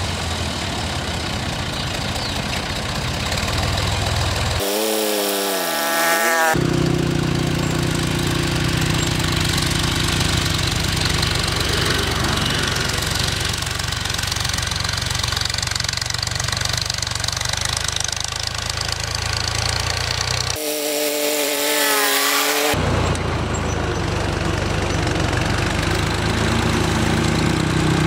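A farm tractor's diesel engine running steadily while it pulls a tillage implement. Twice, about five and about twenty-one seconds in, the engine drops out for about two seconds and a short wavering pitched tone sounds instead.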